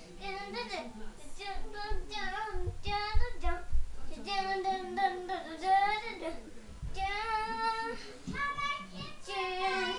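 A child singing a tune in short held phrases, with a few low thumps about two to three and a half seconds in.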